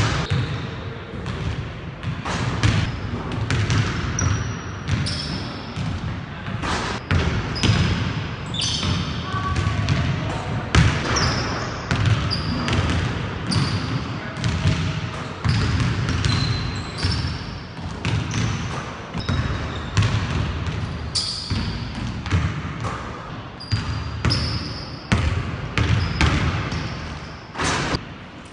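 Basketball dribbled hard on a hardwood gym floor: a quick, uneven run of bounces throughout, broken by drives and jump shots.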